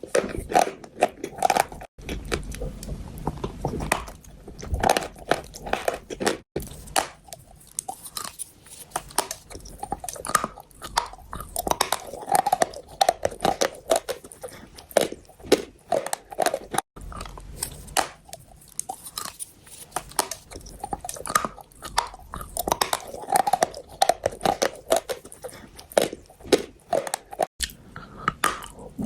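A person biting and chewing chalk, with many sharp crunches coming one after another.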